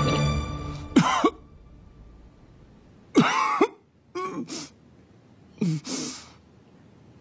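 A person coughing in four short bouts spread over about five seconds, the last two ragged and broken up. Background music fades out in the first second.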